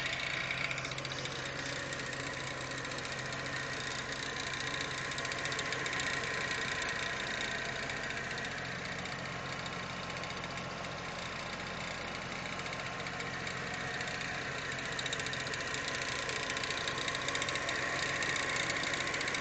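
BMW E46 M3's S54 straight-six idling warm, carrying an abnormal mechanical noise. The owner fears something got caught or blew up inside, on the intake side.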